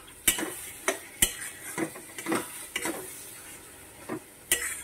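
A spatula stirring and scraping through frying masala in a metal kadhai, knocking against the pan at irregular intervals, loudest about a second in. A steady sizzle runs underneath from the onion-tomato masala frying in oil with spice powders.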